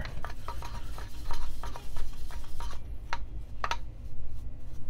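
Light, irregular clicks and taps from hand and brush working inside the opened Niche Zero coffee grinder, sweeping leftover coffee grounds down out of the burr chamber, with two sharper clicks about three seconds in.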